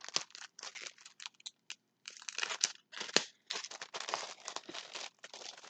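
Plastic packaging crinkling as it is handled, in irregular bursts with a brief pause about two seconds in.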